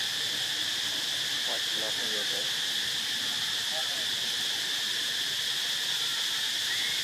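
A steady, unbroken chorus of insects: an even, high shrill hum without pauses.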